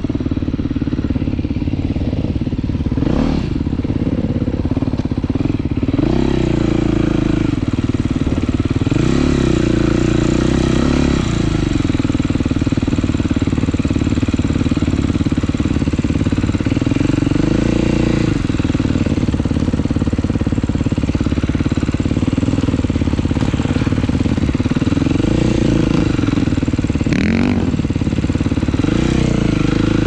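Husqvarna 450 single-cylinder four-stroke dirt bike engine under way, its note rising and falling repeatedly as the throttle is opened and closed, with wind noise over it.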